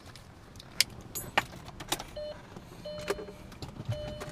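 Sharp clicks and knocks of someone getting into an Audi A4 and handling the keys. From about two seconds in, a short electronic chime repeats about three times, typical of the car's warning chime with the key in before the engine is started.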